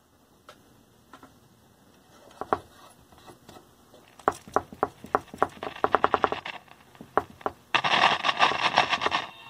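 Crackling and popping from the speaker of a 1950s Bulova All American Five tube radio as its tubes are wiggled in their sockets, the sign of slightly dirty tube sockets. The pops come in quick runs, then a loud burst of static lasts about a second and a half near the end.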